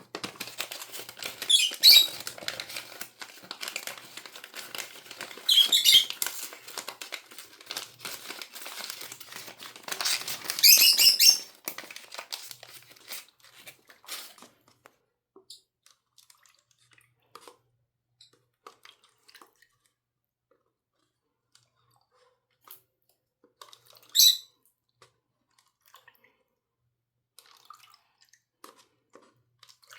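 A pet parrot gives short, shrill calls four times, the longest about 11 s in and the last well after the others. In the first half the calls sit over crackly rustling and crinkling, like a bird chewing or tearing at something; after that only faint scattered clicks are left.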